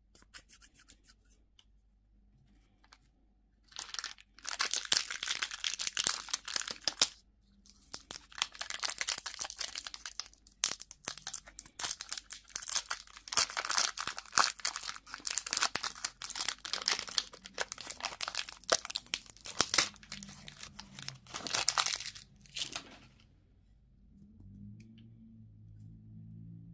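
Plastic candy wrapper being torn open and crinkled by hand, in dense crackly bursts that break off briefly about seven seconds in and stop near the end.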